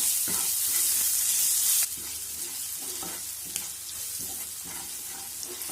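Oil sizzling in a pan as green chili and grated ginger are sautéed in it, with a spoon stirring and tapping against the pan. The sizzle is louder for the first two seconds, then drops suddenly and carries on more softly.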